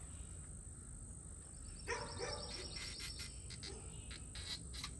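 A dog barks twice about two seconds in, over a high pulsing insect trill. Then come several light clicks as hand tools work on the rusty trailing-arm bearing parts.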